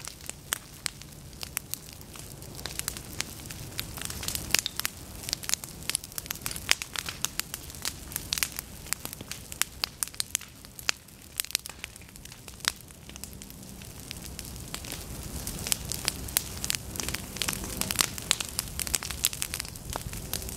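Flame front of a prescribed prairie burn creeping through dry standing goldenrod and other tall forbs, crackling with many irregular sharp pops over a low rumble.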